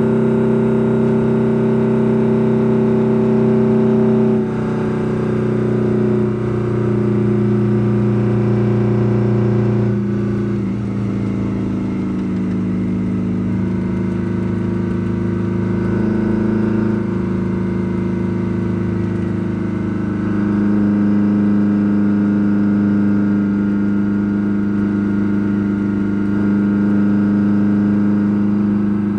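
Vehicle engine running under way, holding steady pitches that step down and up several times as the engine speed changes.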